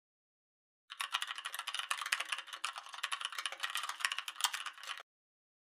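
Typing sound effect: a rapid, uneven run of keystroke clicks that starts about a second in and cuts off abruptly about four seconds later, set to text being typed onto the screen.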